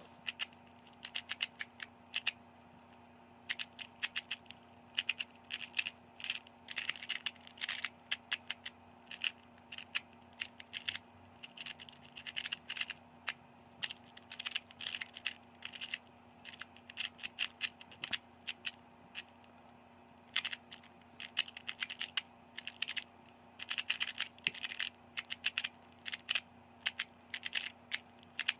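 Rubik's Speed Cube being turned fast during a solve: rapid clicking and clacking of its plastic layers, in dense flurries broken by short pauses.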